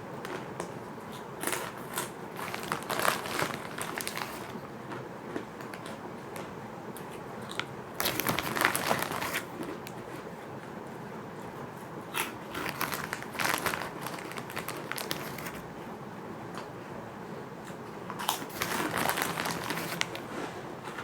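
Close-up crunching and chewing of crispy fish crackers, in four bursts of crackly bites spaced a few seconds apart.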